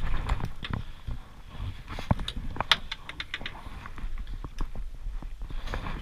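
A freshly landed albacore tuna thrashing on the aluminium deck, its tail beating out a rapid, irregular knocking with a few louder slaps about two seconds in.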